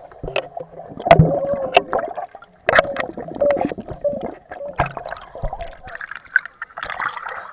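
Sea water splashing and sloshing, with irregular sharp knocks and splashes.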